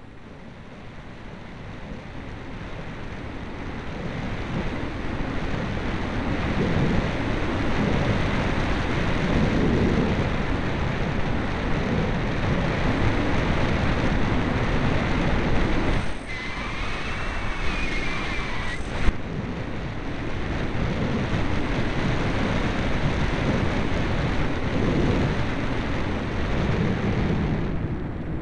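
Airflow rushing over the onboard camera microphone of a ParkZone Radian glider in flight. The rush builds over the first several seconds and then holds steady. It drops briefly about two-thirds of the way through, with a faint wavering whistle and a single tick.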